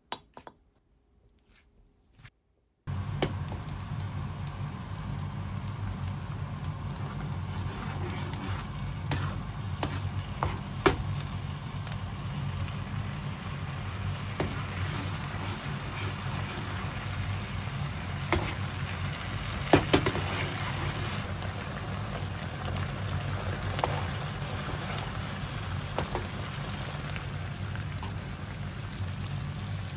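A few faint clinks of a spoon in a small bowl of potato-starch slurry. About three seconds in, soy-based ground-meat sauce in a frying pan on a gas stove starts bubbling and sizzling steadily over a low hum, with occasional sharp clicks of a utensil against the pan as the sauce is stirred and thickened.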